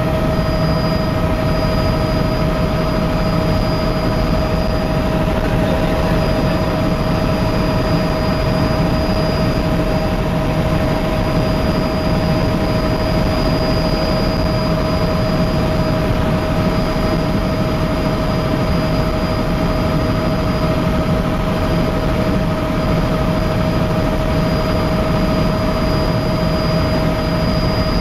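Helicopter in steady cruising flight, heard from inside the cabin: engine and rotor noise as a constant drone over a low rumble, with a few steady whining tones.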